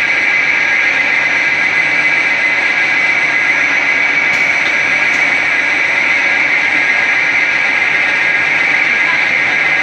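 Steel-wire scourer-making machine running: a loud, steady mechanical din with a constant high whine.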